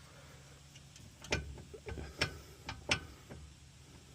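A handful of sharp metallic clicks and knocks at uneven intervals from a front coilover being rocked and worked by hand. The coilover is working itself apart.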